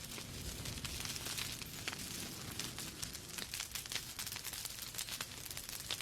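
Wood fire in a fireplace burning steadily, with dense small crackles and pops over a low rumble of the flames.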